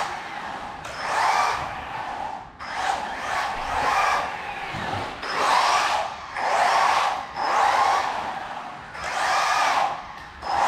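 Mantis S911pro RC buggy's brushless electric motor whining as it is driven, in about six bursts of a second or so, the pitch rising and falling with each burst of throttle.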